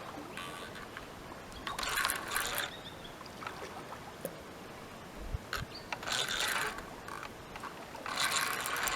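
Fishing reel ratcheting in three short bursts, each about a second long, while a hooked big carp is played on the line.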